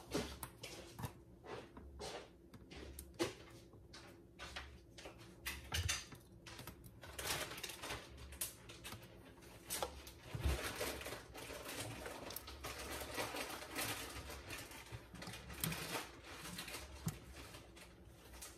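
Faint handling noises: a paper sheet rustling and an electrical cord being unwound and handled, with scattered light clicks and taps.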